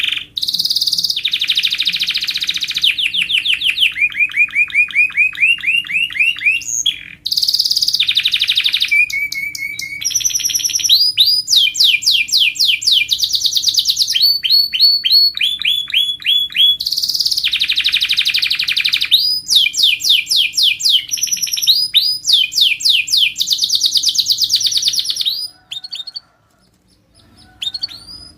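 Canary singing a long, loud song of rapid trills and repeated high notes, switching phrase every second or two. It breaks off about 25 seconds in, then starts again with a few short phrases near the end.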